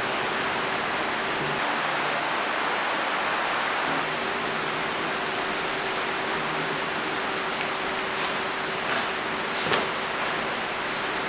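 A steady, even rushing hiss with a faint steady hum under it. A few light knocks come in the last few seconds.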